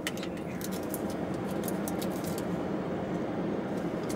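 Steady low background rumble with a few small faint clicks and taps on top.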